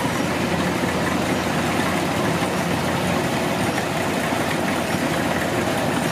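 Kubota DC-105X combine harvester's diesel engine running steadily.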